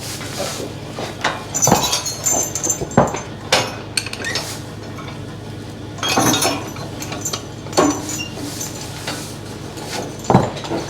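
Irregular metal clinks, clanks and knocks from horse-drawn farm equipment and harness hardware as a draft horse team works, over a steady low hum.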